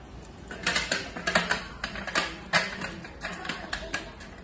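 Aluminium slats of a roll-up camping tabletop clattering and clicking against each other and the folding frame as the top is unrolled and fitted on. The clicks come irregularly, a quick burst starting about half a second in and running for about three seconds.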